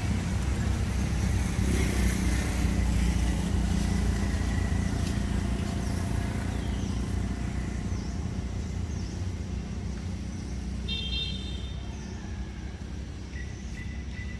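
Low rumble of a passing motor vehicle that slowly fades away, with short high chirps scattered through the middle and a brief high call near the end.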